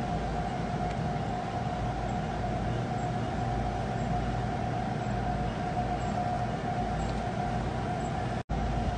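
Cargo ship Bahri Jeddah droning as it passes close along the quay: a steady low rumble with a constant whining tone over it. The sound cuts out for a split second near the end.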